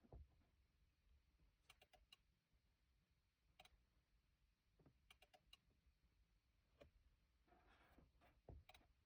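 Near silence with several faint, scattered groups of short clicks: keypad buttons pressed on a Tech 2 scan tool as its menus are scrolled.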